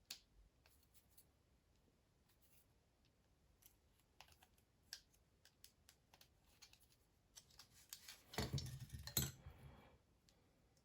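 Faint, scattered clicks and taps of small plastic key fob case parts being handled, with a louder patch of clicking and rubbing about eight seconds in.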